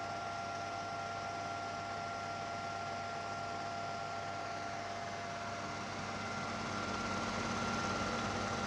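Super 8 film projector running with its cover off: a steady mechanical hum with a couple of constant whining tones. It grows a little louder near the end.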